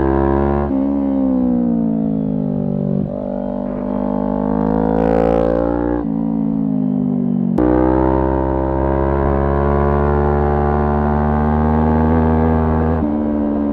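Kawasaki Ninja 400's parallel-twin engine run hard, its pitch sinking and climbing with the revs. The note breaks off sharply several times and picks up again at a new pitch.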